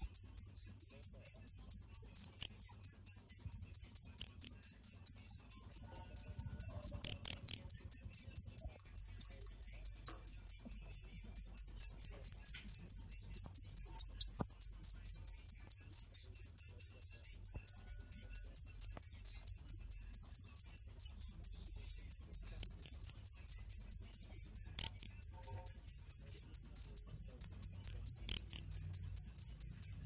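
Cricket chirping steadily, a loud high-pitched pulse repeated about four or five times a second, with one brief break about nine seconds in.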